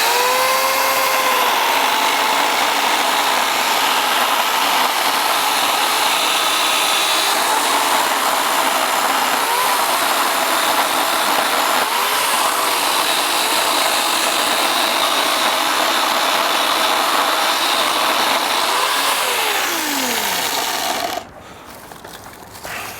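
Chainsaw running under load for about twenty seconds while cutting into a dead tree. Its pitch dips and recovers a few times, and it stops abruptly near the end.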